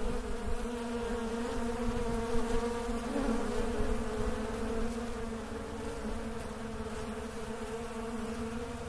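Honeybees buzzing around their hives, a dense, steady hum at an even pitch.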